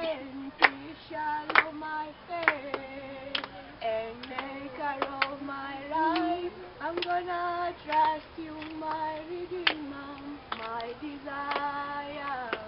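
A group of teenage students singing a Kenyan gospel worship song together without instruments, girls' voices leading, with sharp hand claps about once a second.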